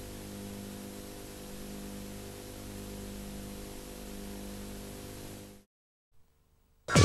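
Steady VHS tape hiss over a low mains hum, which cuts off suddenly about five and a half seconds in. Near silence follows, and loud electronic music starts right at the end.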